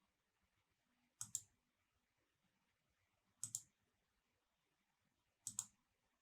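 Computer mouse button clicked three times, about two seconds apart, each a quick double click of press and release.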